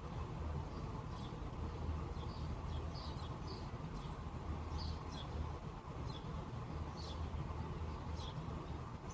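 Small birds chirping: short, high calls, some sweeping downward, scattered every second or so. Under them is a steady low background rumble.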